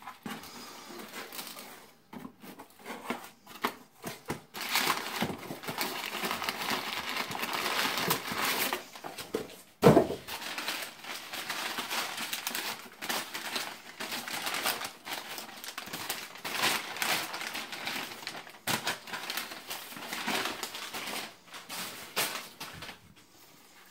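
A cardboard shipping box being torn open by hand and its crumpled packing paper pulled out: steady rustling and crinkling of paper and cardboard, with one loud thump about ten seconds in.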